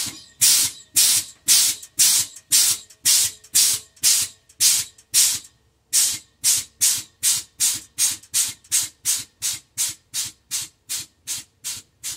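Rhythmic chuffing puffs of hiss, about two a second, with a brief pause near the middle, after which they come quicker, nearer three a second, and a little softer.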